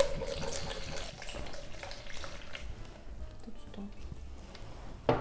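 Cranberry juice poured from a bottle into a plastic measuring jug, splashing and gurgling, strongest in the first second or two and then thinning out. A single sharp knock comes near the end.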